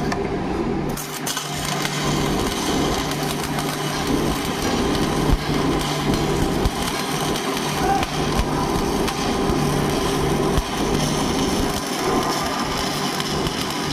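Arc welding: a steady, dense crackling of the electrode arc, with a low hum underneath that drops out now and then.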